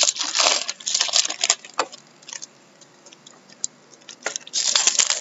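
A stack of trading cards being shuffled and sorted by hand: quick flicks and rustles of card stock sliding over card stock, with a quieter spell of a few light ticks in the middle.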